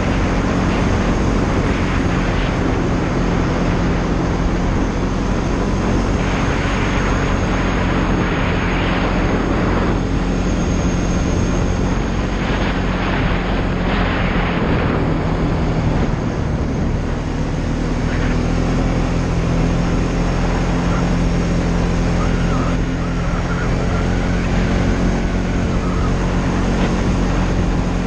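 Polaris Sportsman ATV engine running at a steady pitch while riding along a trail.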